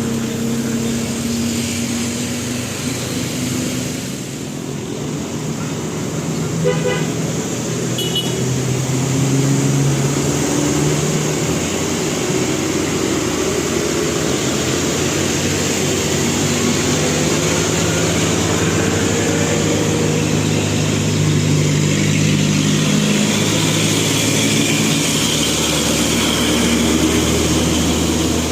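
Bus 'telolet basuri' musical horn playing a tune of held notes that change pitch every second or two, over road traffic noise. A quick run of short beeps comes about seven seconds in.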